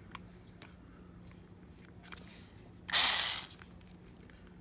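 Cordless power screwdriver briefly running: a half-second mechanical burst about three seconds in, after a few faint handling clicks.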